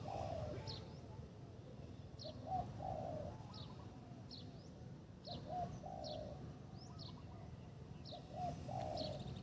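Spotted dove cooing, one low phrase repeated about every three seconds, four times, with a smaller bird's short high chirps repeating in between.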